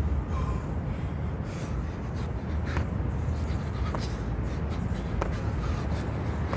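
Sneakers landing on a rubber court surface during repeated tuck jumps: about five short slaps and scuffs, one every second or so, over a steady low rumble.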